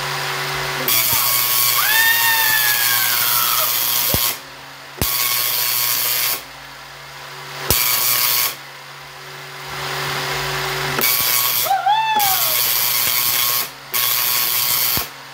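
Large Tesla coil firing sparks into the air: a loud, harsh buzzing rasp that switches on and off in several bursts of one to three seconds. A low steady hum remains in the short gaps between bursts.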